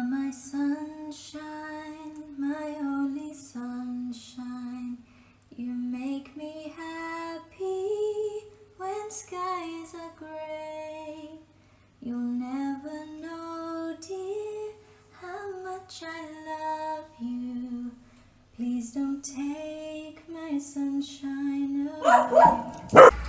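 A woman singing a melody alone, in held notes and short phrases with brief pauses between them. Near the end a louder, wavering voice breaks in.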